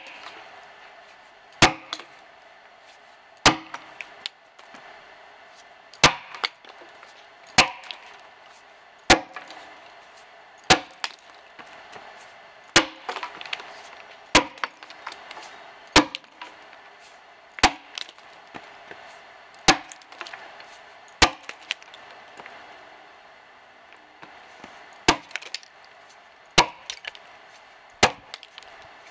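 Axe blows chopping into the side of a dead ash log, cutting a row of slash scoring notches before hewing. About sixteen sharp chops come at a regular pace of roughly one every second and a half, some with a smaller knock of wood just after, and there is a short pause past the middle.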